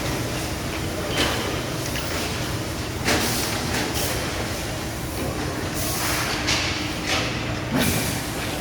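Steady machine rumble with a constant low hum, and six or so short rasping surges of noise spread through it.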